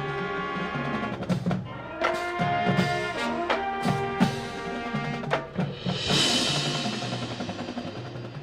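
High school marching band playing: held brass and woodwind chords under a run of sharp drum and wood-block hits, with a ringing crash about six seconds in.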